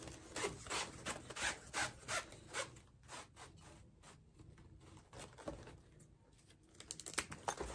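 Plastic boning being pushed and slid through a fabric casing, giving soft rubbing strokes about three times a second for the first few seconds. Near the end come a few sharp clicks as scissors cut through the boning.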